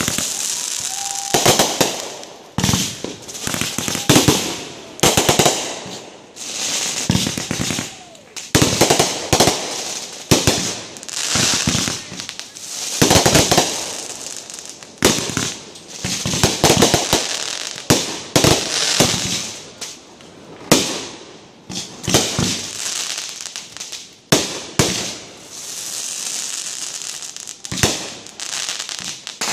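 Fireworks display at close range: a rapid, irregular series of loud bangs from aerial shells bursting overhead, with crackling between them.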